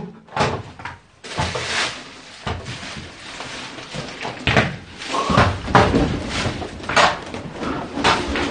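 Several sharp knocks and bangs at uneven intervals, like a door or cupboard being struck or shut, the strongest in the second half, over a steady rustling hiss that comes in about a second in.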